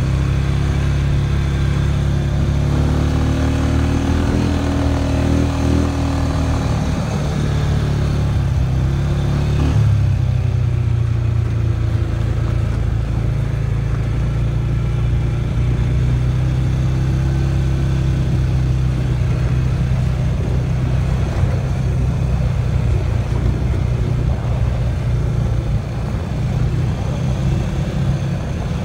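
ATV engine running under load on a rough dirt trail, its pitch rising and falling with the throttle in the first ten seconds and then holding fairly steady.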